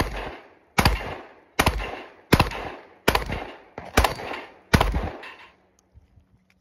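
Beretta 1301 12-gauge semi-automatic shotgun fired seven times in quick succession, about one shot every three-quarters of a second, each shot trailing off in a short echo. A few faint clicks follow after the last shot.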